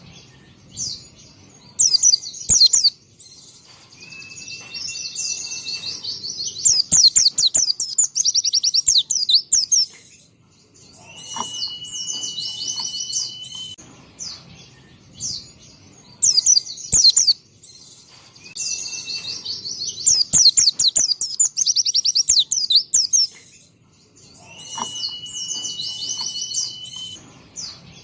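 Pleci (white-eye) singing: a long, steady whistled note followed by a burst of rapid, high twittering and fast trills. The phrase repeats about every nine seconds.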